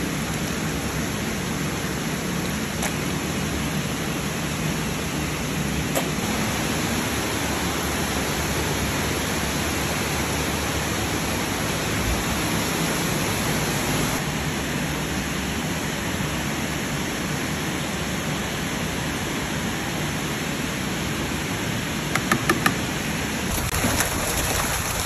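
Steady rushing noise at an even level throughout, with a few quick clicks about three seconds before the end.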